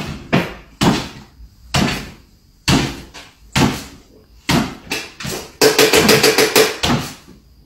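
Repeated knocks and thuds, about one a second, with a quick run of them about six seconds in: a small dog's paws landing on a wooden floor as it hops on its hind legs.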